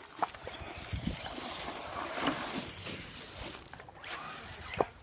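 Electric RC car driving over rough ground: a noisy rustling hiss that swells to a peak about two seconds in, then fades.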